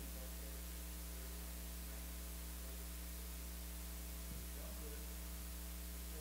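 Steady electrical mains hum with a low hiss from the recording and sound system.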